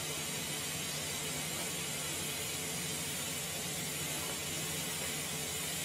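TIG welding arc on carbon steel pipe, a steady hiss with a low hum under it as filler wire is fed into the weld pool.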